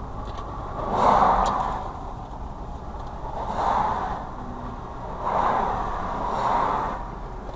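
Road noise inside a moving car's cabin: a steady low tyre and engine rumble with four whooshes of passing traffic that swell and fade.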